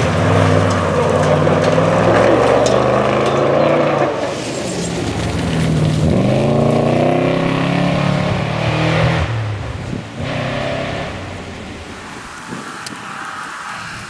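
V8 rally cars running hard on a gravel stage. A loud, steady engine note fades at about four seconds. Around six seconds a car revs up with a rising note and holds at full throttle for a few seconds. It is followed by a fainter, more distant engine toward the end.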